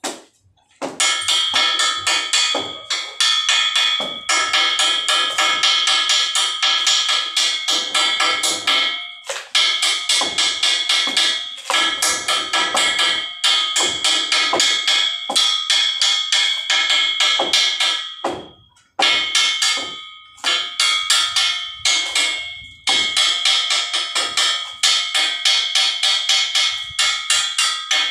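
A hammer strikes a welded steel pipe joint fast and repeatedly, in runs of a few seconds with short breaks, and the metal pipe rings with each run.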